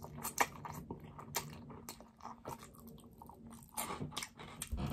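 A person slurping and chewing a mouthful of spicy Korean fire noodles: a run of short wet smacks and clicks from the mouth.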